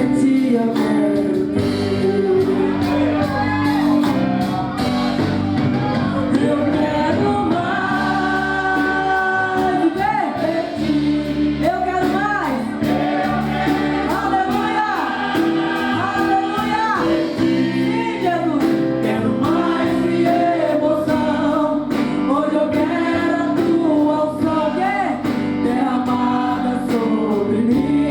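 Gospel worship song sung with instrumental accompaniment: a sung melody over sustained bass and chords.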